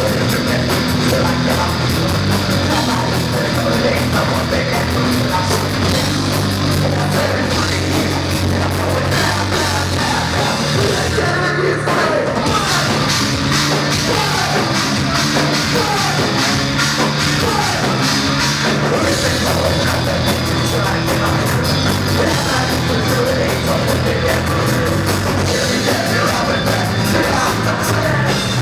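Loud heavy rock music from a live band: drums, distorted guitars and a singing voice, steady and dense throughout.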